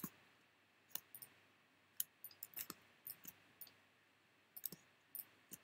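Faint, irregular clicking of a computer mouse, about twenty short clicks scattered unevenly through a near-silent room.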